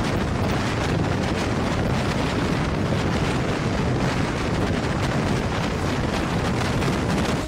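Passenger train running at speed on the track, a steady rumble and rush of wheels on rail, with wind buffeting the microphone held at an open window or door.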